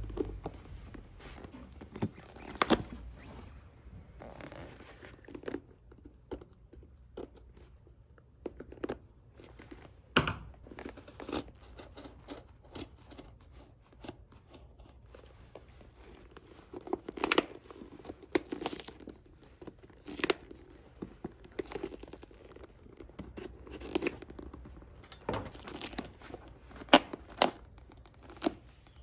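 Hand tools working apart a Red Wing Beckman leather boot: irregular scraping, cutting and tearing of leather, broken by sharp knocks and clicks every second or two.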